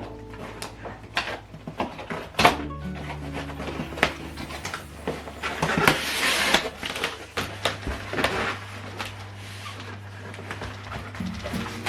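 Background music with sustained low bass notes, over scattered knocks and clicks from handling, with a burst of rustling about six seconds in.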